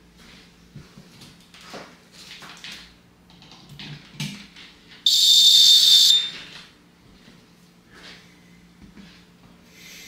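Fire-Lite ES-50X fire alarm panel's piezo buzzer sounding one shrill beep of about a second as the panel is powered up, cutting off sharply. Faint handling noises and a light knock come before it.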